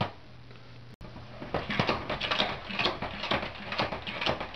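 Pump-action plastic salad spinner being pumped to dry washed lettuce: a run of quick, even clicks, about four a second, starting about a second in.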